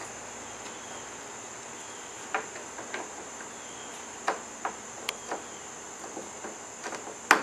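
Light, sharp clicks and knocks, about eight to ten spread irregularly from a couple of seconds in, the loudest near the end, as plastic bungee cord retainers are handled and fitted into a kayak's accessory track. A steady high-pitched hiss runs underneath.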